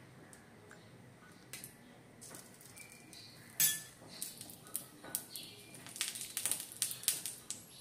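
Cooking utensils clicking and scraping on an iron tawa as a puran poli is flipped and ghee is spread, with one loud knock about three and a half seconds in. Near the end, quick ticks come thick and fast: ghee crackling on the hot pan.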